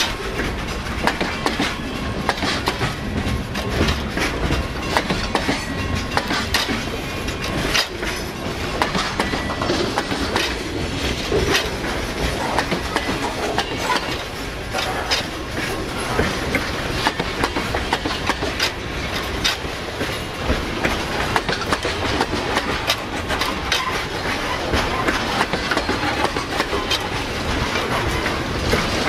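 Freight train cars rolling past: steel wheels clicking over rail joints and a steady rumble.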